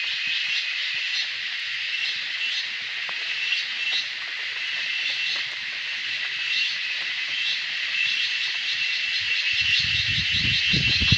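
A steady, high-pitched chorus of insects, shimmering with fast pulses. A low rumble joins near the end.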